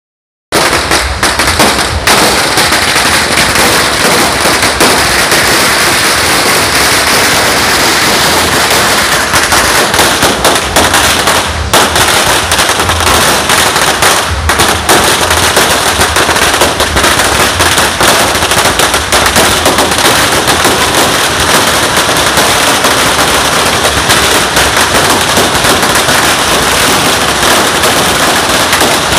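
Firecrackers going off in a rapid, unbroken crackle, loud and even throughout, starting suddenly just after the opening.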